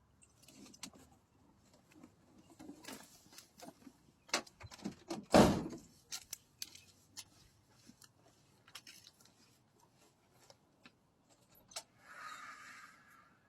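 A run of scattered clicks, knocks and rattles from objects being handled, with one loud knock about five and a half seconds in and a short hiss near the end.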